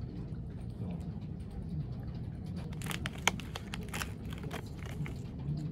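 A short burst of rustling and clicking about three seconds in, with one sharp click, over a steady low background hum.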